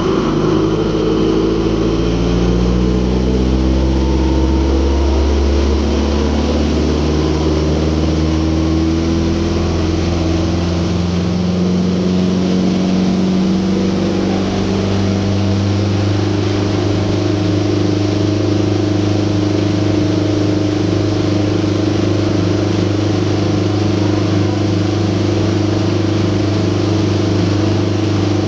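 River ferry's engine: it comes up loud right at the start, rises steadily in pitch over roughly the first fifteen seconds as the boat speeds up, then runs at a steady pitch.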